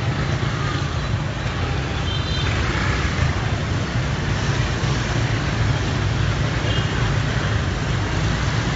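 Steady traffic noise of a street crowded with motorbikes and scooters, their engines running, with two brief high beeps partway through.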